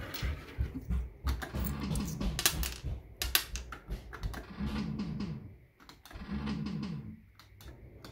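Maygay 'The Great Escape' fruit machine in play: sharp clicks from its buttons and reels spinning and stopping, with a short stepped electronic sound effect repeated three times.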